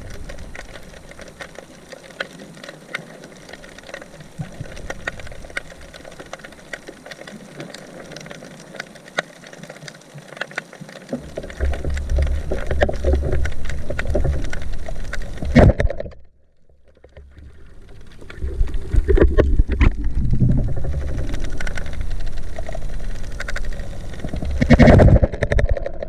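Underwater sound around a swimming spearfisher: a constant crackle of small clicks, with a low rushing rumble of water moving past that builds about eleven seconds in, breaks off briefly a few seconds later, and then returns.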